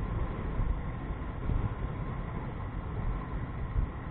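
Wind buffeting the microphone of a camera on a moving motor scooter, a steady low rumble that swells unevenly, mixed with the scooter's engine and road noise.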